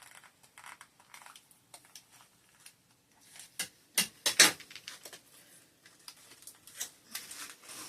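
Doll packaging and accessories handled by hand: scattered light plastic clicks and rustles, with a few sharper taps about halfway through.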